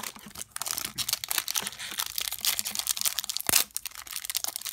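Foil wrapper of a Topps trading card pack crinkling and crackling as it is pulled from the box and handled, with a sharp snap about three and a half seconds in.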